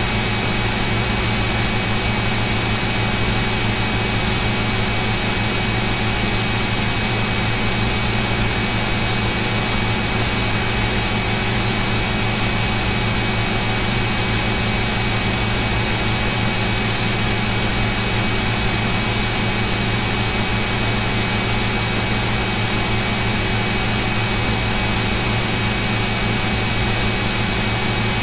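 Steady, loud hiss with a low electrical hum and a few faint steady whine tones, never changing: the noise of an open recording input with no one speaking.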